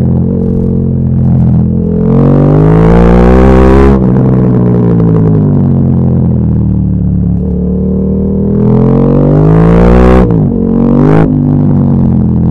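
KTM 1290 Super Duke R's 1301 cc V-twin engine under hard acceleration, its pitch climbing steeply and then cutting off sharply as the throttle shuts, twice. Between the pulls the revs fall away on the overrun, and near the end there is one short burst of revs.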